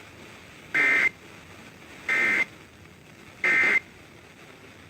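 Three short bursts of Emergency Alert System end-of-message data tones (the EOM "NNNN" code), each about a third of a second long and evenly spaced, over a steady hiss of radio reception. They mark the end of the alert.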